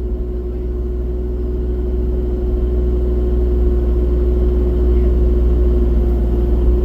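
Rubber-tracked excavator's diesel engine running steadily under work, a low rumble with a steady hum over it, growing slowly louder.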